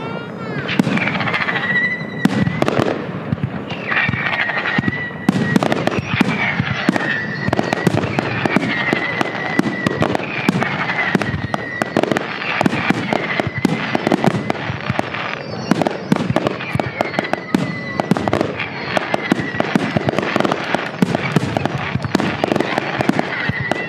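Fireworks going off in rapid succession, a dense run of bangs and crackles. Every second or two comes a whistling tone that slides down and holds.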